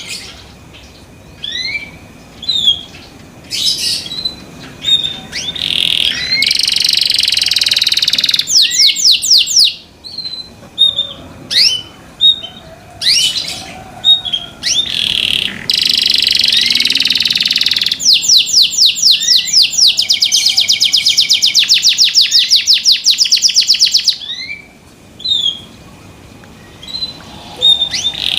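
Domestic canary singing loudly: a chain of fast trills and rolls, each a rapid run of one repeated note, broken by short pauses. The longest rolls come in the second half.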